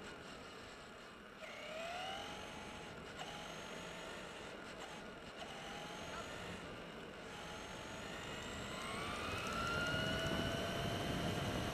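Traxxas E-Maxx RC monster truck's electric motor whining, its pitch gliding up several times as the truck speeds up, with rough road and tyre rumble that grows louder near the end.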